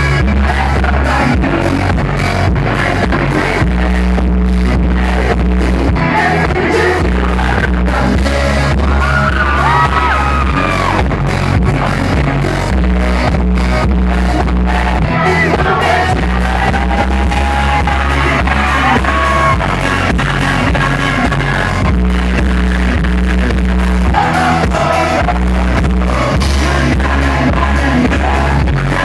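Loud pop-rock music with a singing voice over a steady drum beat and a heavy bass line.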